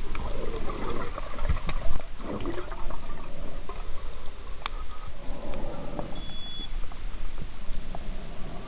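Scuba exhaust bubbles rushing and gurgling past an underwater camera in uneven bursts a second or two apart, as the diver breathes out, with scattered clicks and crackle.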